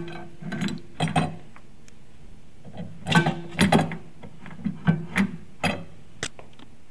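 Metal clunks and clinks as a ball screw with its ball nut and aluminium adapter block is handled and knocked against the mill's cast-iron saddle during a test fit. The knocks come irregularly, in small clusters, each with a short ring.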